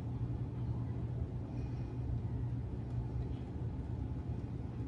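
A steady low rumbling hum with no distinct events.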